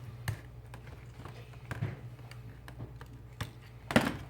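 Small scattered clicks and taps of a prying tool working against a phone's glass and frame as the glass is twisted loose, with one louder sharp click near the end.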